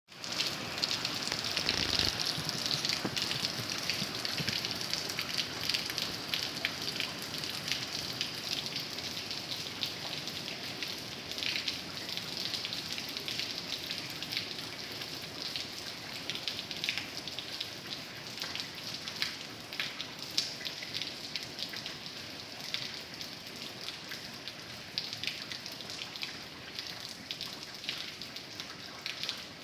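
Steady rain falling, a continuous hiss dotted with the ticks of individual drops hitting a surface.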